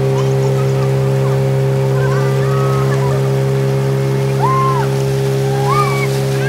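Small passenger boat's engine running steadily at cruising speed, a constant drone that holds one pitch, with water rushing past the hull.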